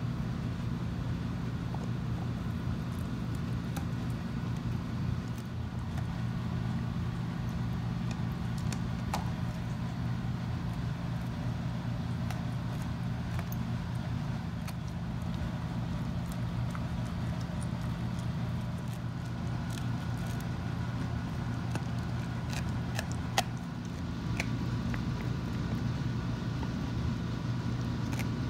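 Pit bull gnawing on a bully stick, with faint scattered clicks from the chewing and one sharper click near the end, over a steady low hum.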